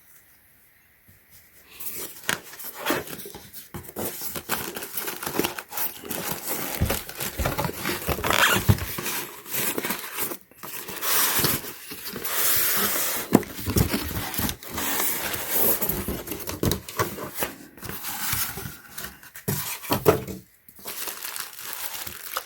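Packaging crinkling, rustling and tearing as a boxed pond pump is unwrapped by hand, with sharp clicks of handling mixed in. It starts about a second and a half in and goes on in uneven bursts.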